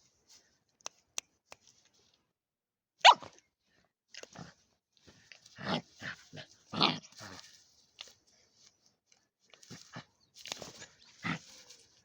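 One-month-old German shepherd puppy barking in short, high yaps with pauses between them; the loudest, sharpest bark comes about three seconds in, with a run of yaps after it and two more near the end.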